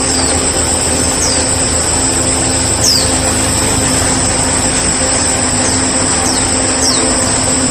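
Outdoor ambience: a steady, loud rushing noise with a constant high buzz, and about six brief, high, falling chirps from small birds scattered through it.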